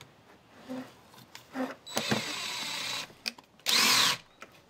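Cordless driver running in two short bursts, the second louder with its pitch rising and falling, turning a 1-inch pocket-hole screw in OSB that will not drive farther and just spins.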